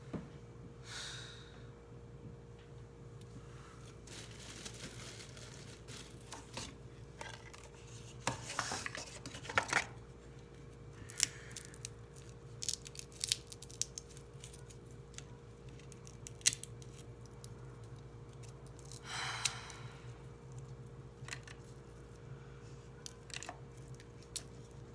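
Desk sounds during study: scattered keyboard-like clicks and taps with a few short paper rustles, about a second in, around eight to ten seconds in and around nineteen seconds in, over a steady low hum of background noise.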